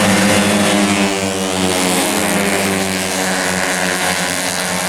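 Tuned automatic scooter racing engine running at high revs with a steady, even engine note, easing slightly after about a second.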